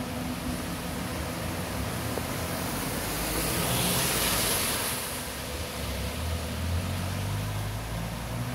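City bus engine rumbling as the bus pulls away from the stop, over a steady hiss of rain and traffic on the wet road; the hiss swells briefly about four seconds in, and the low rumble grows stronger in the second half.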